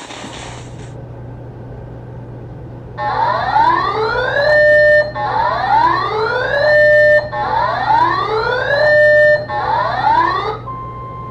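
Electronic whooping alert siren: four rising sweeps, each climbing for about a second and a half and holding briefly at the top before cutting off. Near the end a steady single-pitch tone just above 1 kHz starts, typical of the NOAA Weather Radio 1050 Hz warning alarm tone. A low steady hum runs underneath.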